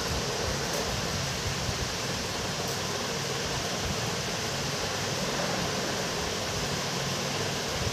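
A steady, even hiss of background noise with a faint low hum under it.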